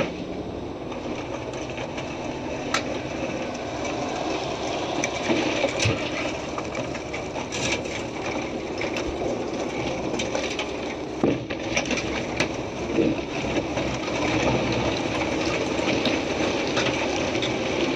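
Wrecked box truck dragged across concrete by a tow truck's winch cable: continuous scraping and crunching of metal and debris, with scattered sharp cracks and knocks as the wreck shifts.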